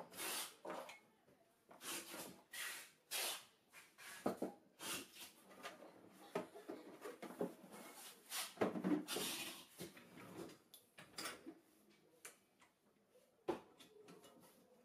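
Handling noise from a steel 2-ton hydraulic trolley jack and its plastic carrying case being moved and set down on a table: irregular knocks, clicks and scrapes, with the loudest clatter a little past halfway.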